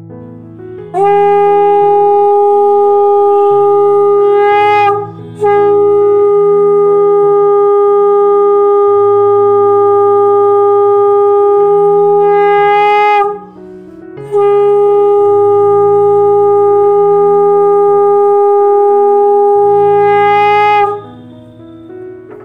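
Conch shell (shankha) blown in three long steady blasts, the middle one the longest: the ritual conch call of a Hindu home puja. Soft piano music plays underneath.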